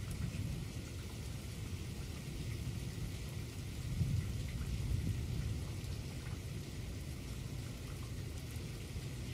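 Steady rain in a thunderstorm, with a low rumble underneath that swells briefly about four seconds in.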